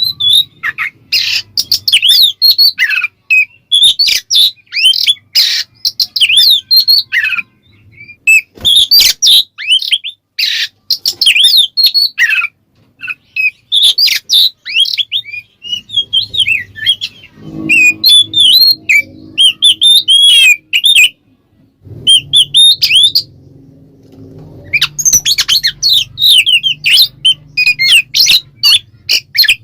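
Oriental magpie-robin (kacer) in full loud song, the 'ngeplong' style: rapid runs of varied whistled and chattering phrases, broken by a few short pauses.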